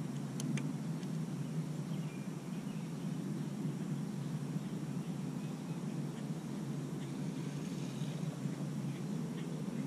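Steady low wind rumble on the microphone, with a couple of sharp clicks about half a second in.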